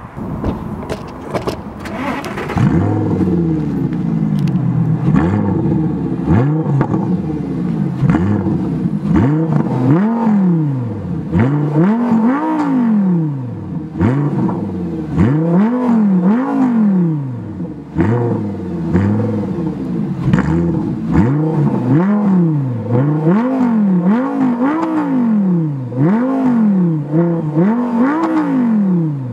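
Audi R8 engine revved repeatedly while the car stands still: quick throttle blips, each pitch rising and falling back, about one a second.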